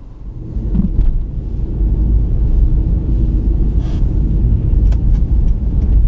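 A car driving on a snow-covered road, heard from the dashboard inside the cabin: a steady low rumble of engine and tyres that swells in about half a second in, with a few faint clicks.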